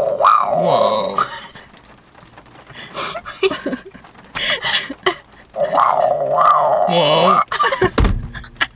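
A person's voice making long, wavering animal-like calls, twice, with pitch sliding up and down. A low thump near the end.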